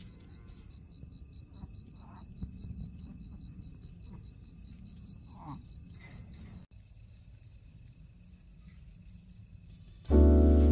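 Crickets chirping in a fast, even, high-pitched pulse that stops abruptly about two-thirds of the way through. Loud music comes in near the end.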